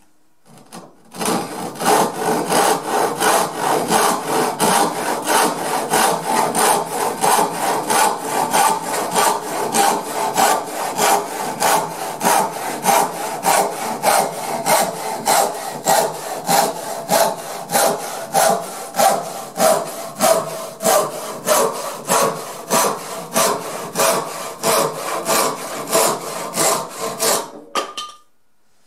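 1880s Richardson Bros. No. 7 hand rip saw ripping down the grain of a wooden board held in a vise. It saws in steady strokes, about three every two seconds, starting about a second in. It stops near the end as the cut goes through, with a brief ring.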